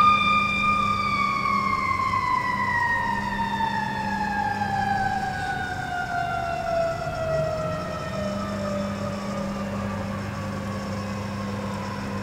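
Fire truck siren winding down: one long tone that holds for about a second, then slides steadily lower in pitch and fades over the next ten seconds, over a low steady engine hum.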